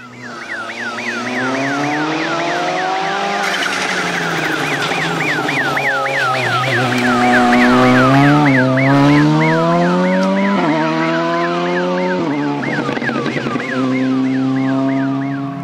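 Siren on a Volkswagen Polo rally course car warbling fast, about three sweeps a second, over the car's engine revving up and easing off several times as it comes through the corner and passes close, loudest about halfway through. The siren warns spectators that the stage is live.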